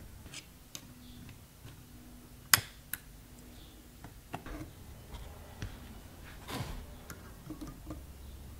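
Scattered small metallic clicks and ticks of fine tweezers and stiff component leads being bent and wrapped around turret-board posts, with one sharp click about two and a half seconds in, over a faint low hum.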